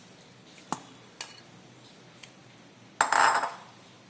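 Kitchen utensils and bowls clinking: a few separate light clicks, then a short, loud rattling clatter about three seconds in.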